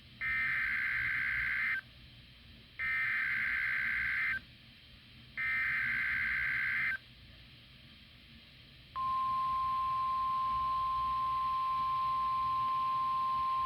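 Emergency Alert System SAME header on NOAA Weather Radio: three identical bursts of warbling digital data tones, each about a second and a half long with short gaps. About nine seconds in, the steady 1050 Hz weather radio warning alarm tone starts and holds.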